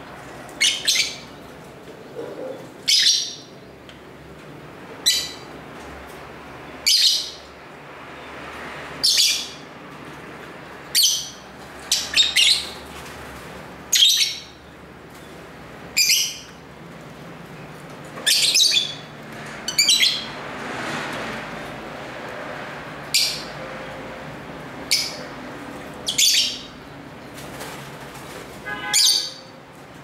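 Lovebirds giving short, sharp, high-pitched chirps, one every second or two, with a quick stuttering chatter near the end.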